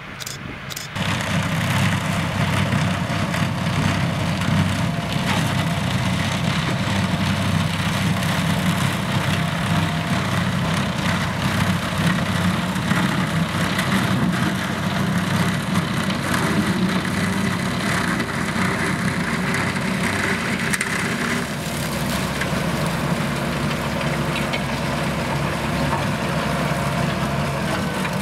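Vervaet Beet Eater 617 self-propelled sugar beet harvester at work, its engine and machinery running steadily and loudly. It comes in suddenly about a second in.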